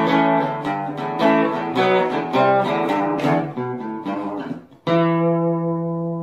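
Acoustic guitar music: a run of picked and strummed notes, then a final chord a little before five seconds in that rings on and slowly fades.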